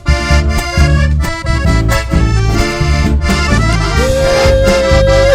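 Accordion-led folk band playing an instrumental passage of a dance tune over a strong, steady bass beat; near the end a long held note comes in.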